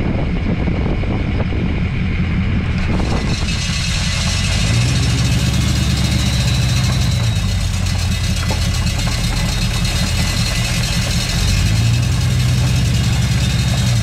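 Tailgate salt spreader running on a moving pickup, with the truck's diesel engine running beneath a steady high hiss. The engine note swells about four and a half seconds in, eases off, and swells again near the end.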